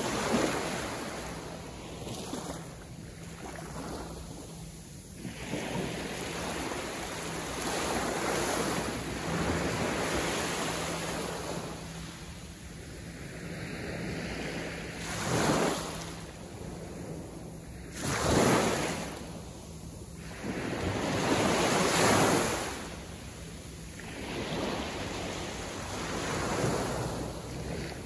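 Small ocean waves breaking and washing up on a sandy beach. The surf swells and falls every few seconds, with the strongest surges a little past halfway through and again near three-quarters of the way.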